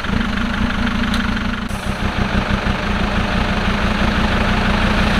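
Land Rover Defender engine idling steadily, a low even drone.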